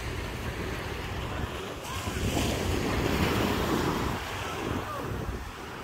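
Small waves breaking on a sandy beach, with wind buffeting the microphone; the surf gets louder from about two seconds in.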